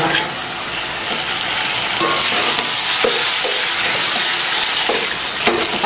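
Quartered tomatoes frying and sizzling in hot oil with sautéed onions and green chillies as a wooden spatula stirs them through the pan. The sizzle grows stronger about two seconds in.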